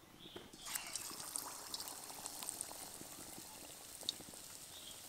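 A besan-battered raw-mango chop sizzling and crackling as it goes into hot vegetable oil in a kadai. The sizzle starts about a second in, strongest at first, then settles into a steady fine crackle.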